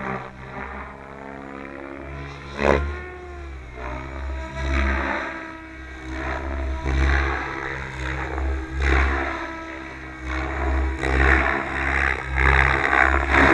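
Goblin 700 radio-controlled helicopter's rotor and drive, manoeuvring with the pitch sweeping up and down. A loud close pass about two and a half seconds in has its pitch drop sharply, and swelling blade noise grows louder toward the end.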